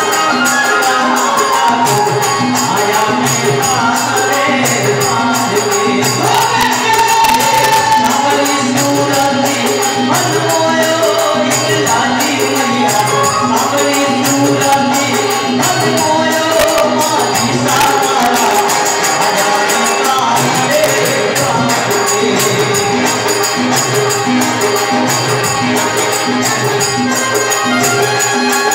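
Live Rajasthani devotional bhajan: male voices singing over harmonium and an electronic keyboard, with jingling hand percussion and a drum keeping a steady beat.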